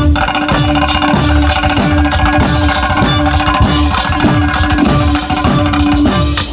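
Drum-led music: repeated drum strokes that drop in pitch after each hit, about two a second, over a held low note and a busy higher melody line.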